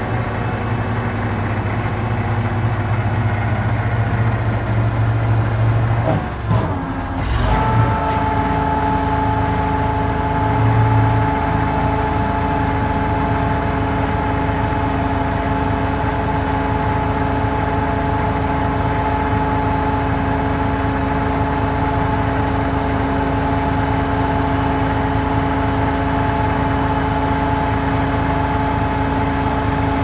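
Truck crane's engine running steadily. About seven seconds in there is a sharp clank, then a steady mechanical whine with several held pitches sets in over the engine and carries on.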